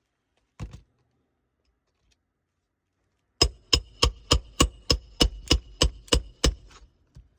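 A single knock, then about eleven quick hammer blows, roughly three a second, each ringing as if striking metal, as in driving a roofing nail into a shingle.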